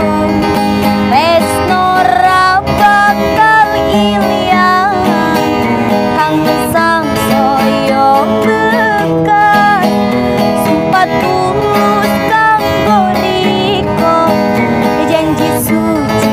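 Acoustic guitar strumming chords under a sung melody, the voice sliding and bending between notes in an ornamented Javanese style.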